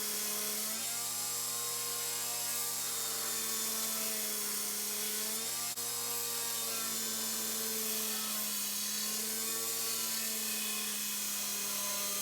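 A power grinder running while grinding the bevels into a steel knife blade: a steady motor hum whose pitch sags and recovers now and then, over a constant grinding hiss.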